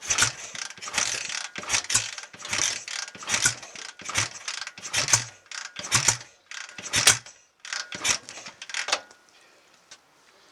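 BSA A65 Lightning's 650 cc parallel-twin engine being kicked over again and again, about a dozen short clattering strokes of the kickstart ratchet and engine turning, stopping near the end without settling into a steady run. The owner puts the reluctance to start down to the ignition timing being too far retarded.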